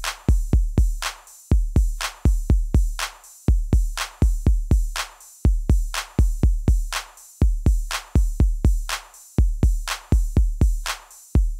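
Background electronic music: a steady drum-machine beat of deep bass-drum kicks and sharp hits repeating in an even pattern.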